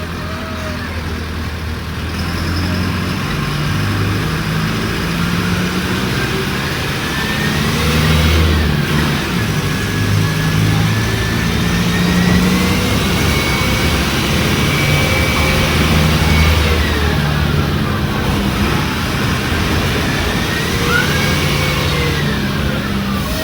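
Mercedes-Benz OF-1722M bus engine running on the road, its pitch rising and falling in steps as it pulls and changes gear. Over it is a whine that rises and falls again and again, the strange noise this bus makes.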